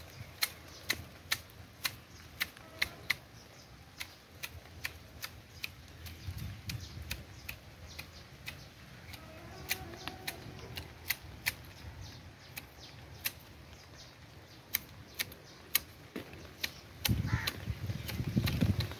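Manual hedge shears snipping through ficus leaves and twigs: a quick, fairly regular run of sharp clicks, about two to three a second, thinning out for a few seconds in the middle. A low rumble lasting about two seconds comes near the end.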